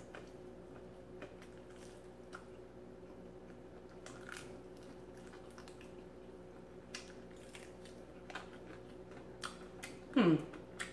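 Close-up eating of a fried chicken wing: soft wet chewing, mouth clicks and lip smacks, over a steady faint hum. Near the end comes a short voice sound that falls steeply in pitch.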